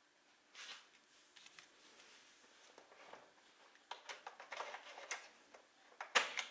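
A 3.5-inch floppy disk being slid into a laptop's floppy drive: short scuffs and scattered clicks of plastic handling, with one sharper click near the end.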